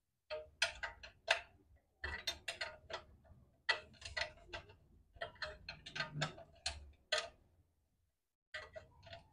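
Ratchet wrench clicking in short runs of quick, sharp clicks as the generator's engine mount bolts are tightened.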